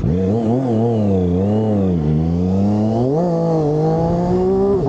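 Zontes 700RR sport motorcycle's inline three-cylinder engine under throttle as the bike rides off, its pitch rising and falling several times, then climbing steadily from about three seconds in before dropping right at the end.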